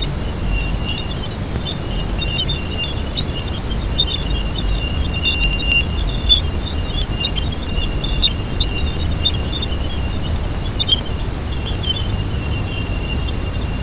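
Jupiter as heard through the sonification of space probes' radio and plasma-wave measurements: a steady low rushing noise, with a thin, high band of fluttering chirps and crackles above it.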